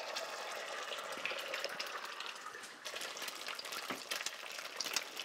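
An egg frying in a generous layer of hot oil in a frying pan, almost deep-fried: a steady sizzling hiss from the moment it goes in, with sharp crackles and spits that come more often in the second half.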